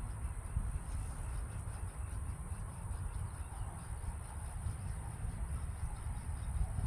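Wind buffeting the microphone in a gusty low rumble, with a steady high-pitched insect drone running underneath.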